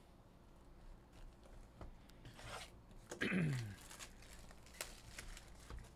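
Cardboard trading-card box being picked up and handled, with rustling and rubbing of the box and its wrapping. A short falling squeak-like tone sounds about three seconds in.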